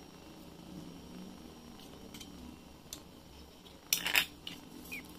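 Quiet handling sounds, with a short burst of sharp clicks and rattling about four seconds in, the loudest sound.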